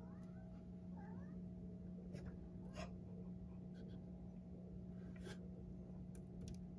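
Two faint, short, high calls from an animal wanting to be let in, about a second apart, followed by a few light taps. A steady low hum runs underneath.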